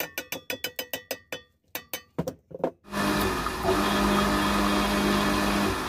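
A quick run of metallic clicks with a ringing tone, then about three seconds in the 1 HP Suzuki electric water pump motor starts and runs with a steady hum and rushing noise.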